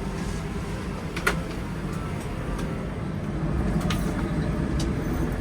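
Steady low rumble of a vehicle heard from inside, with a sharp click a little over a second in and two fainter clicks later.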